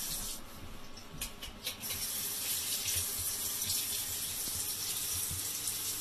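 Water running steadily from a tap, an even hiss, with a few light taps in the first two seconds.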